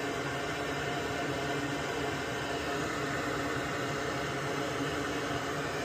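Steady whooshing noise of air moving, like a small fan or blower running at constant speed, with a faint hum under it.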